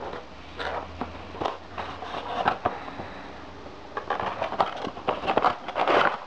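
Cardboard mouse box being handled and opened: irregular rustling, scraping and light clicks of the card flaps and tray, busiest in the last two seconds.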